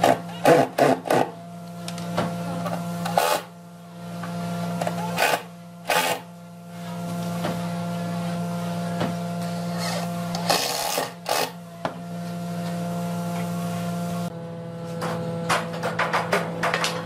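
Cordless drill driving screws into plywood cabinet panels in short bursts: several within the first second or so, then more around three, five to six, and eleven seconds in, over a steady low hum. Near the end, a quick run of clicks and light knocks.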